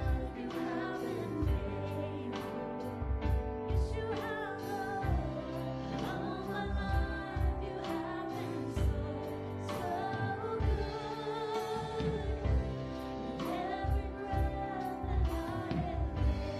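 Live church praise band playing a worship song: two women sing lead over electric bass, keyboard and guitar, with sustained vibrato notes and a regular low beat.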